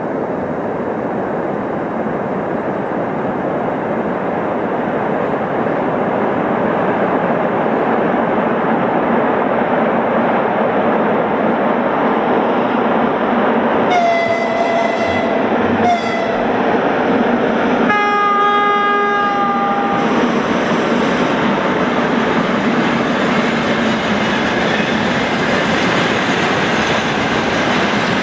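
A 2ES6 electric locomotive hauling a freight train runs past, with steady rolling noise of wheels on rails throughout. About halfway through its horn gives a long blast and a short one. About two seconds later comes a second, fuller-toned blast as a friendly greeting, and the freight wagons keep rolling past.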